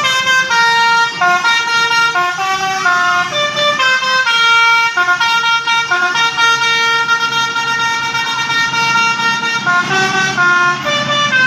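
A bus's Basuri-type 'telolet' multi-tone air horn playing a tune: two or three horn notes sound together and step quickly from note to note, with a longer held chord around the middle.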